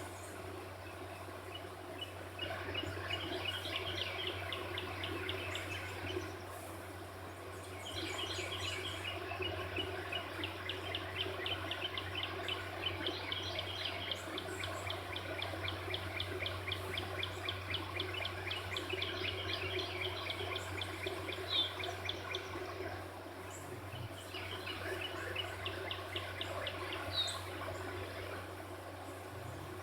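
Birds calling, with long runs of quick, evenly repeated chirps that pause briefly twice, over a steady low hum.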